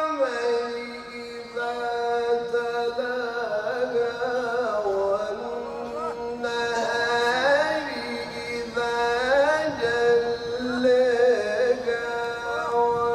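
A man's voice reciting the Quran in the melodic, sung style of tilawat: long held notes with ornamented runs that bend up and down.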